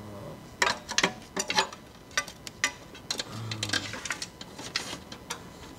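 Steel socket, chrome swivel and long extension clicking and clinking against metal as a socket is worked onto a hard-to-reach bolt under the car, in irregular sharp taps.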